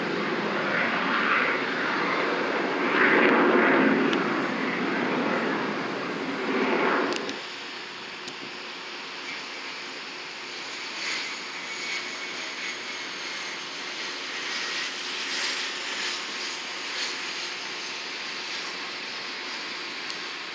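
Aircraft engine noise: loud and even for about seven seconds, then suddenly much fainter, leaving a steady hiss with a thin high whine that slowly falls in pitch.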